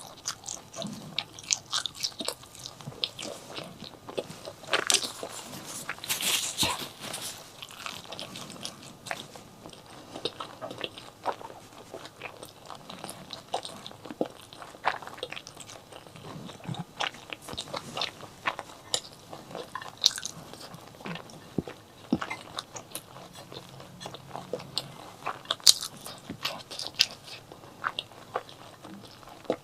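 Close-miked eating of chili and white rice: a dense run of crunchy bites and wet chewing clicks, busiest a few seconds in and again near the end.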